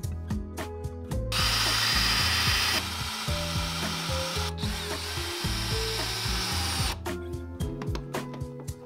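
Cordless drill boring into a cedar frame brace, starting about a second in and running steadily for about five and a half seconds before stopping, over background music.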